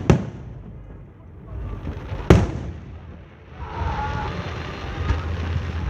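Aerial fireworks bursting: two sharp booms, the louder one about two seconds in, then a steady hiss over the last two seconds.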